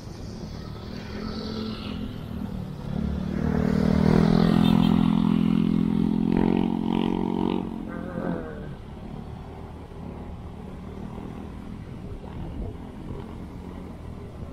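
Motorcycle engine running close by, swelling loud about three seconds in and dropping away after about eight seconds, over a steady low engine and road rumble.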